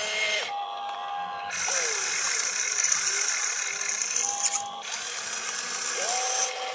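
Electric drive motors of an RC excavator whining as it swings and raises its boom, the pitch sliding up and down as the controls move and briefly dropping out twice.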